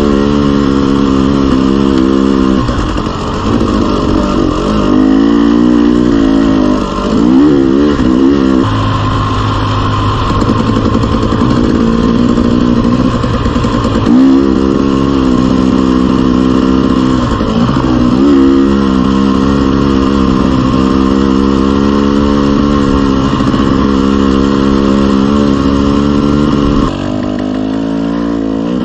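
A dirt bike engine being ridden along a trail, revving up and easing off again and again. Its pitch climbs and falls with the throttle, with a steadier stretch about a third of the way in, and it gets quieter near the end.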